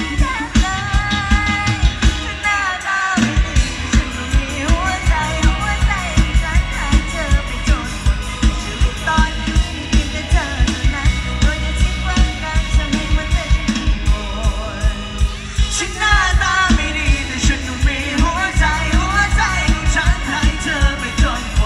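Live Isan mor lam band playing, with a singer's voice over a driving drum kit beat of about two to three hits a second; the bass and drums drop out briefly about three seconds in.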